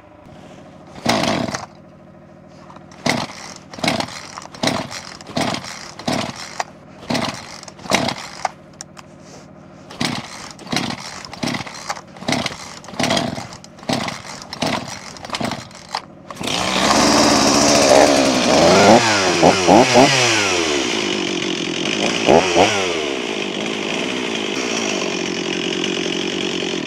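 Stihl two-stroke chainsaw being pull-started cold: about fifteen pulls on the starter cord, one a second or so, each with a brief cough. About sixteen seconds in it catches and runs, is revved up and down a few times, then settles into steady running.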